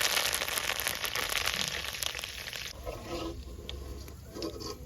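Hot oil sizzling hard after curry leaves are dropped into it, the crackling hiss dying down over about three seconds.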